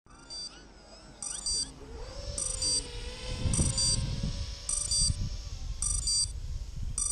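FPV racing quadcopter flying past, its motors a steady hum that rises in pitch about two seconds in, with a low rushing rumble as it passes closest around the middle. A loud electronic beeper repeats a short double beep about every 1.3 seconds.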